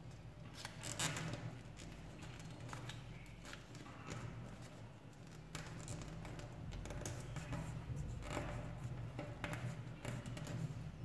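A paper dollar bill being folded and creased by fingertips: soft, irregular crinkles and rubs. The louder crinkles come about a second in and again near the end, over a steady low hum.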